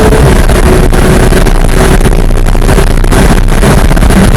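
Porsche 991 GT3's flat-six engine running at speed on track, heard loud inside the cabin with road and wind noise. Its steady engine note dips slightly about a third of a second in.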